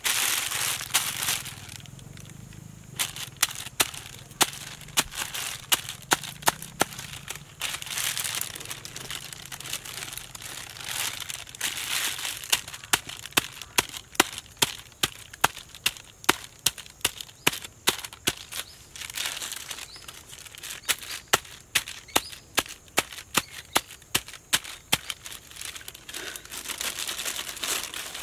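A plastic bag crinkling and rustling as food in it is crushed by hand on a rock, with long runs of sharp knocks, about two or three a second.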